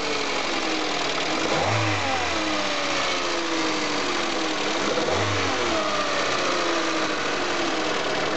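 Peugeot car engine revved with two throttle blips, each rising quickly and falling back toward idle. The engine is being checked for an abnormal noise from around the engine.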